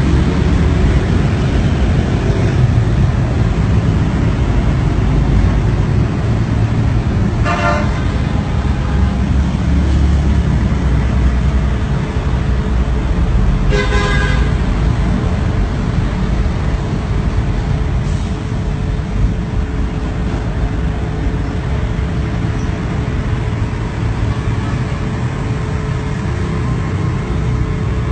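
Steady road-traffic noise with a vehicle horn tooting briefly twice, about seven and fourteen seconds in.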